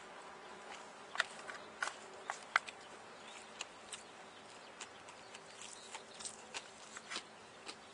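Eating sounds: irregular sharp clicks and smacks of a mouth chewing, with no steady rhythm.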